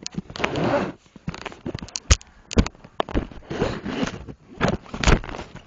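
Handling noise close to the microphone: irregular knocks, scrapes and rustling as the recording device is moved and rubbed against fabric.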